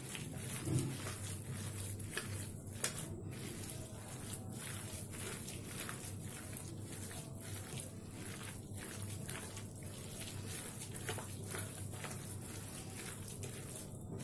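A hand mixing thick gram-flour batter with chopped spinach in a metal bowl: faint, irregular squelching of the wet paste.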